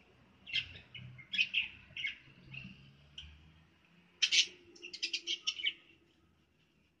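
Small birds chirping: short, sharp high notes in scattered clusters, the loudest about four seconds in, then a quick run of chirps that stops about six seconds in.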